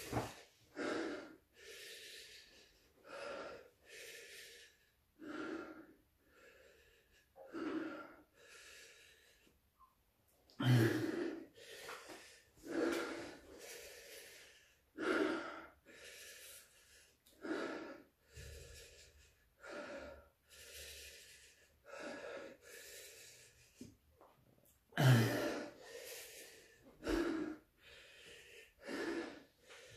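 A man breathing hard and gasping through his mouth, roughly one breath a second, with louder gasps about eleven and twenty-five seconds in: the laboured breathing of someone whose mouth and throat are burning from hot chili peppers.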